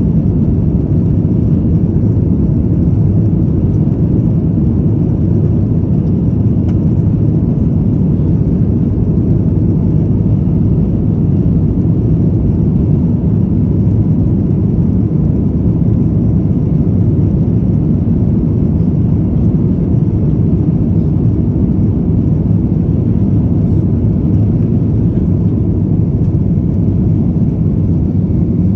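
Airbus A321-211 cabin noise: a loud, steady low rumble of engines and airflow that holds unchanged throughout.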